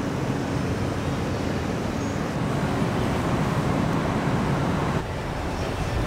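Steady low rumble of outdoor background noise, dipping slightly about five seconds in.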